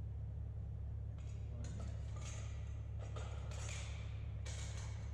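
Metal leg tubes of a TerrAdaptor portable anchor being handled and slid together, scraping and clinking several times from about a second in, over a steady low hum.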